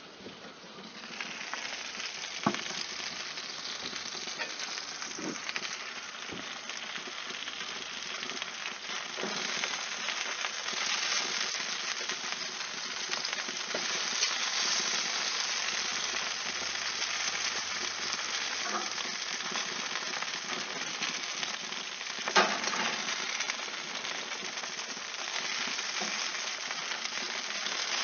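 Bacon-wrapped chicken sizzling steadily on a hot barbecue grill, the sizzle swelling about a second in as the lid is opened. A few sharp clicks of metal tongs against the wire rack come as the pieces are turned, the loudest twice.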